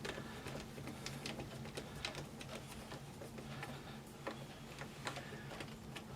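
Faint, irregular small clicks and ticks of a hand tool turning the screw that draws the AR-15 pistol grip up tight.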